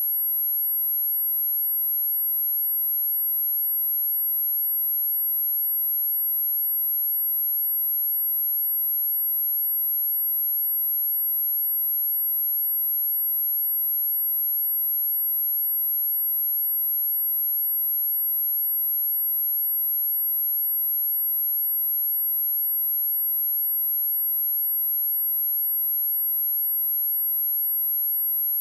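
A steady, unbroken, very high-pitched pure sine tone at 11551 Hz, a speaker test tone.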